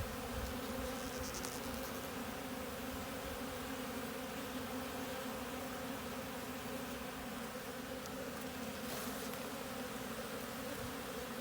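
Honeybees from an opened hive buzzing in a steady hum of many wings, the colony a tad cranky from frames being shaken off.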